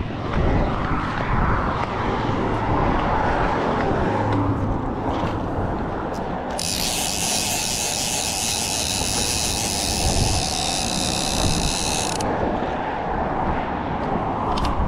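Penn Squall 60LD lever-drag conventional fishing reel working against a fish, its mechanism giving a steady, high ratcheting buzz that starts sharply about six and a half seconds in and cuts off about six seconds later.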